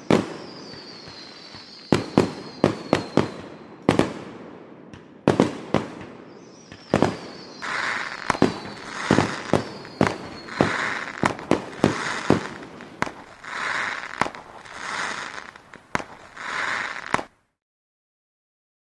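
Fireworks going off: sharp bangs, two falling whistles, then a run of hissing, crackling bursts about once a second. The sound cuts off suddenly near the end.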